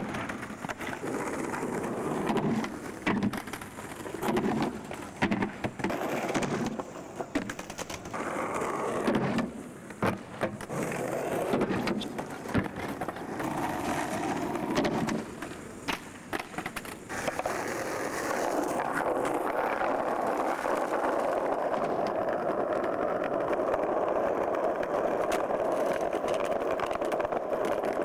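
Skateboard wheels rolling over plaza paving, broken by sharp clacks of boards popping and landing around small kicker ramps. In the last part the sound settles into a long steady roll of wheels on the pavement.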